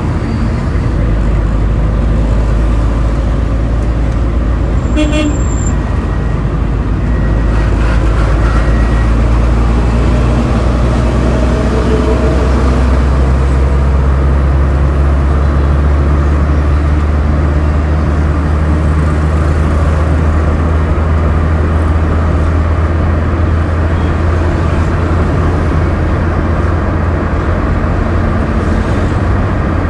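Road traffic noise: a vehicle engine's steady low drone over the rushing wash of traffic.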